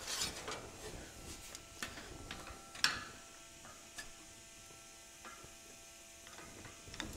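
Bench-mounted lever-action hand shear cutting thin sheet metal: a few quiet snips and clicks, the loudest about three seconds in, after which the cut metal rings faintly for a few seconds.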